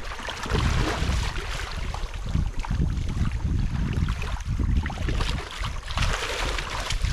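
Wind buffeting the microphone in uneven low gusts over water noise, with a stronger rush of hiss near the end.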